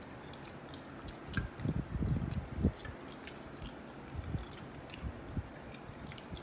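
A person chewing a mouthful of food close to the microphone, loudest from about a second and a half in, with light clinks of a fork on a plate.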